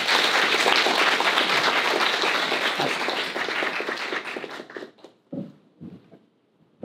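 Audience applause, many hands clapping, dying away about five seconds in.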